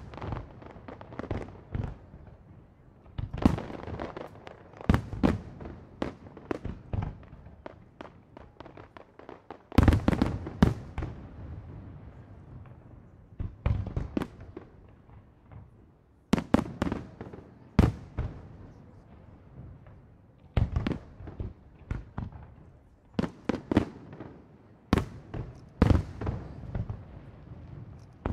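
Aerial fireworks display: shells bursting in sharp bangs, coming in irregular volleys with short lulls between them. The loudest cluster comes about ten seconds in.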